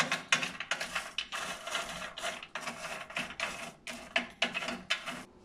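Roasted almonds being stirred and turned over on a foil-lined baking tray, rattling and scraping in quick irregular strokes that stop shortly before the end.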